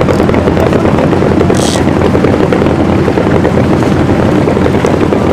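A fishing boat's inboard engine running steadily and loudly under way, a fast, even drone.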